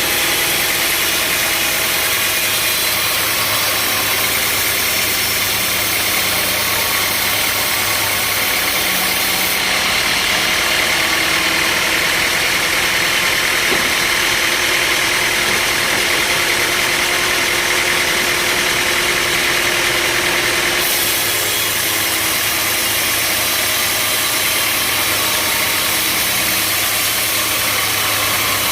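Sawmill machinery engine running steadily. The sound changes in character for about ten seconds in the middle, then returns to how it was.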